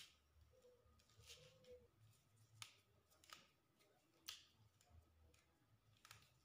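Faint scraping and cutting of a knife peeling husk fibre from a coconut shell: a handful of short, separate rasps and clicks a second or so apart.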